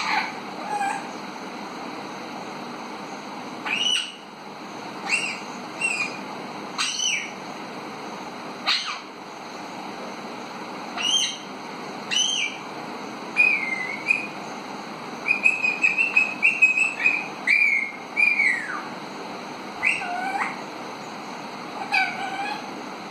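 Five-month-old pet Alexandrine parakeet giving a string of short whistles and calls, many sliding up or down in pitch. A wavering, warbled run comes in the middle, and two whistles near the end swoop steeply down.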